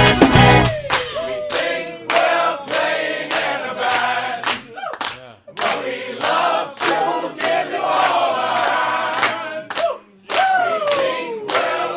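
Group of voices chanting and singing together over a steady percussive beat of about two hits a second. The full band drops out just under a second in. About ten seconds in, a voice slides down in pitch.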